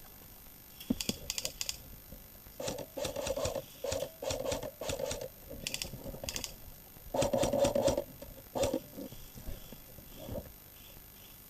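Airsoft guns firing several short bursts of rapid clicks, mixed with louder rustling and scuffing spells.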